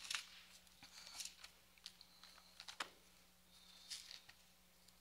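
Near silence with faint, scattered rustles and light clicks of Bible pages being turned to find a passage, over a faint steady hum.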